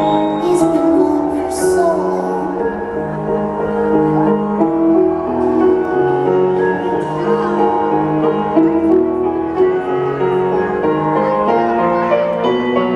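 Live rock concert music in an arena: sustained keyboard chords shifting every second or so.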